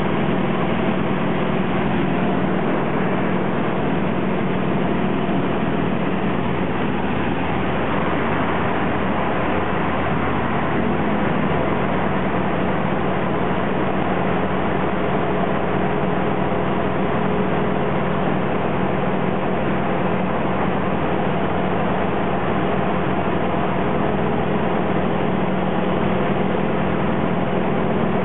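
Yak aircraft's radial engine running steadily at cruise power, heard from inside the cockpit together with the rush of airflow over the canopy.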